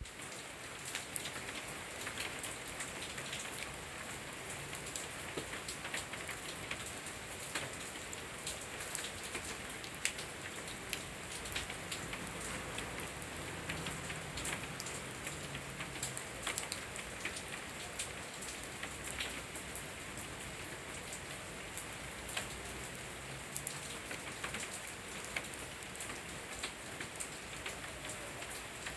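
Steady rain falling, with many close drops striking sharply through an even hiss.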